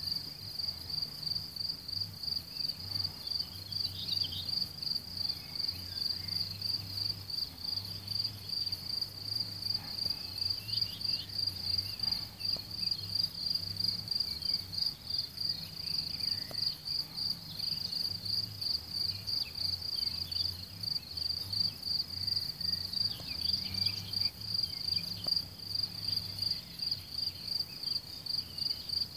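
Crickets singing: a steady, fast-pulsing chirping that never lets up, which the uploader takes for European mole crickets.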